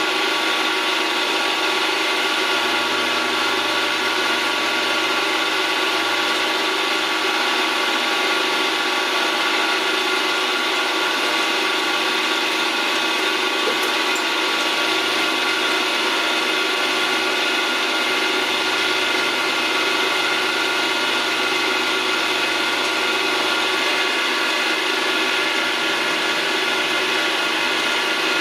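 Milling machine running steadily, its spindle drive giving a constant whine of several pitches, while the cutter mills a small part held in a chuck.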